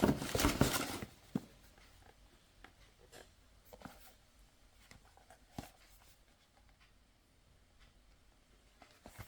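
Packaging being handled: a burst of rustling at the start, then a few scattered light taps and clicks.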